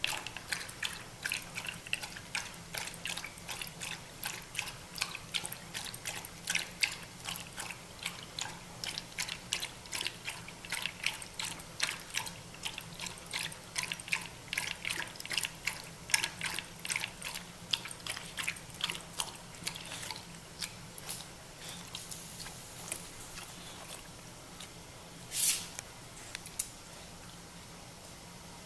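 A Pembroke Welsh Corgi lapping water from a bowl: a quick run of wet laps at about three a second that thins out and stops after about twenty seconds. A single short, louder noise follows a few seconds later.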